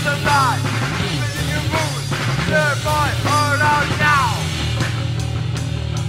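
Rock band playing, a punk-rock style track: a steady bass line under a lead guitar line of repeated notes that bend up and fall back. The lead line drops out about four seconds in, leaving the bass and rhythm going.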